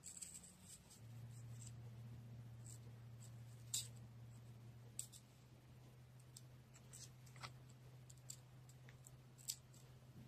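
Faint, sparse clicks of a small paring knife cutting into a raw carrot as petals are carved, over a steady low hum.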